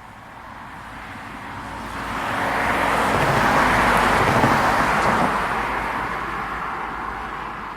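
A car passing by on a nearby road: its tyre and engine noise swells over a couple of seconds, peaks about four seconds in, then fades away.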